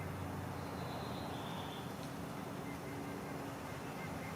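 Honeybees buzzing as a faint, steady hum around the open hive. A bird chirps faintly about a second in.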